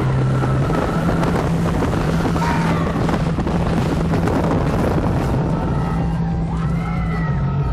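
Roller coaster train running at speed through a dark show building: a loud, steady rumble with wind rushing over the microphone.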